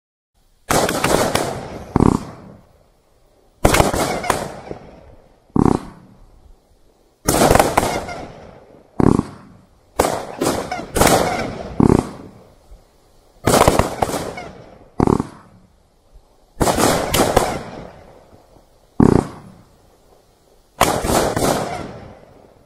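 A 500-gram 'Midnight Sun' consumer firework cake firing shot after shot of flaming balls and reports. Sharp loud bangs come about every one to three seconds, starting about a second in, each fading away over a second or two.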